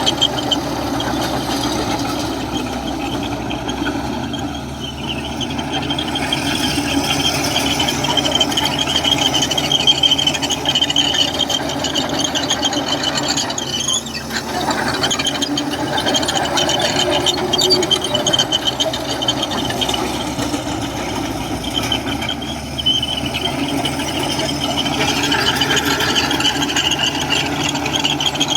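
Komatsu crawler bulldozer working: diesel engine running under load with the steel tracks squealing and clanking steadily.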